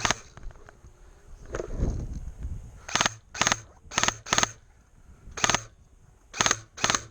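An airsoft gun firing seven single shots, loosely in pairs, from about three seconds in to near the end.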